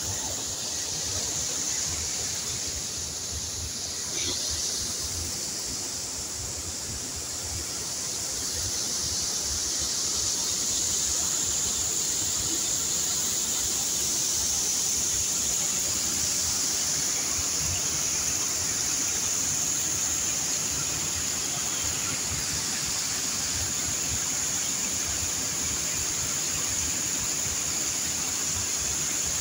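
Water rushing steadily over a reservoir's masonry spillway, which is overflowing after heavy rain; the rushing grows louder about eight to ten seconds in.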